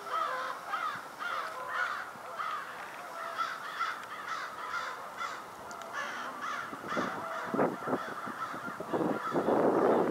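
Birds calling over and over in short, harsh notes, about two or three a second. A few scuffs follow about seven seconds in, and a rustling hiss starts near the end.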